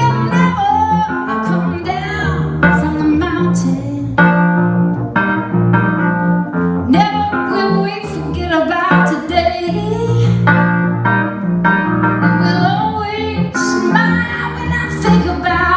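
Live rock band playing, a woman singing over keyboard and a steady bass line.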